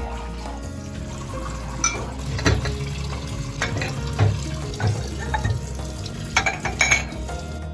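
Water running from a tap into a sink, with a scatter of sharp clinks of dishes, most of them bunched near the end.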